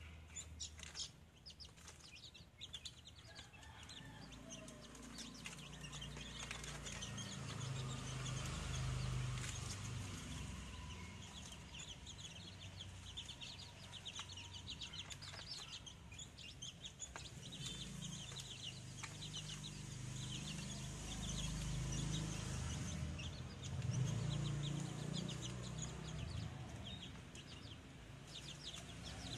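Young chickens peeping: many short, high cheeps in quick succession throughout, over an uneven low rumble.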